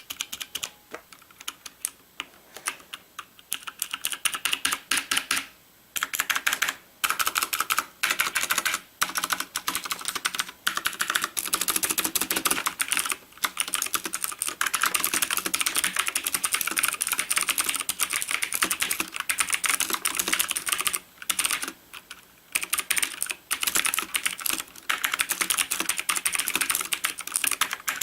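Typing on a Nixeus Moda v2 mechanical keyboard with clicky Kailh Blue switches. For the first few seconds the keystrokes come slower and spaced apart, then they turn into fast, continuous typing with a few brief pauses.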